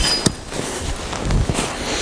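Hatchet splitting kindling from a stick of firewood: a few sharp knocks of the blade striking into the wood, the strongest just after the start and another about a second and a half in.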